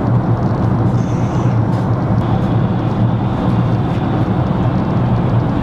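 Airliner cabin noise in flight: a steady, even drone of engines and airflow, heaviest in the low range.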